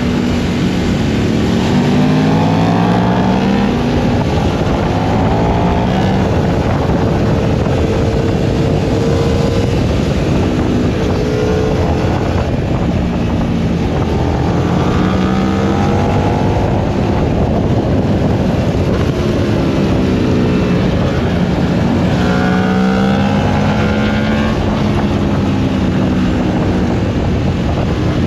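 Onboard sound of a high-performance naked motorcycle engine under hard riding. The engine note climbs in pitch several times as the bike accelerates, then drops back at gear changes or on the throttle, over a steady rush of wind on the microphone.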